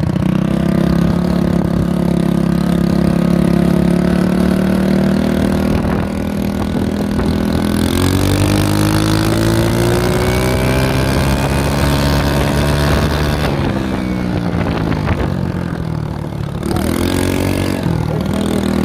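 Mini bike's small engine running on a ride. It holds a steady pitch at first, then revs up with a rising pitch for about five seconds and falls back as it slows, settling at a low steady note near the end.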